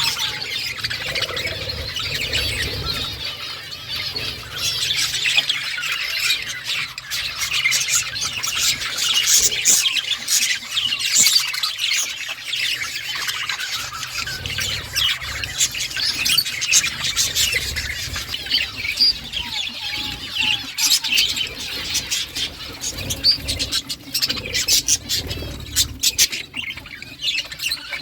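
A flock of budgerigars chattering and chirping continuously, many birds calling over one another in quick, high twittering notes.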